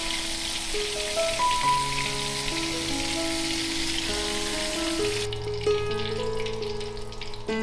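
Cornstarch-and-egg-coated pork cubes deep-frying in hot oil in a wok: a steady sizzle that drops away abruptly about five seconds in. This is the first, gentler fry that seals the outside of the meat. Background music plays throughout.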